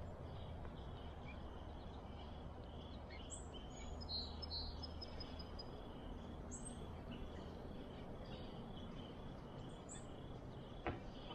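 Quiet outdoor ambience: a steady low hiss with a faint high band running through it and a few short, high bird chirps, plus a single click near the end.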